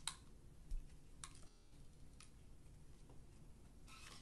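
Faint, sparse clicks and taps from a pistol and gun-cleaning gear being handled on a tabletop while a bore snake is readied for the barrel. A handful of single clicks, then a brief rustle near the end.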